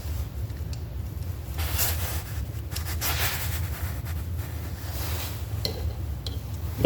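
Faint rubbing and scraping of small metal parts being handled with a screwdriver on a distributor, with a couple of light ticks near the end, over a steady low hum.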